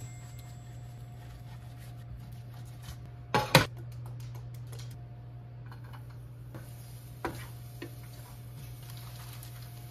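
Cooking prep over a steady low hum: a sharp metal clack about three and a half seconds in as a stainless steel frying pan is set down on the glass cooktop, a lighter knock a few seconds later, and faint ticks and taps between.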